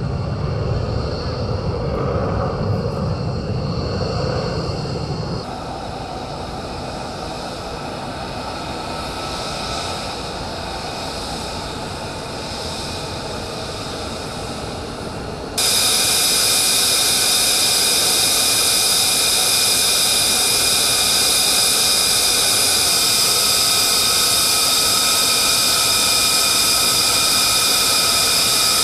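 F-35 fighter jets' F135 turbofan engines running, in three cut-together takes: a deep jet rumble of one in flight, then a quieter taxiing jet with a thin high whine, then, about halfway in, a sudden switch to a much louder, steady rush and whine of an engine running close by on the ground.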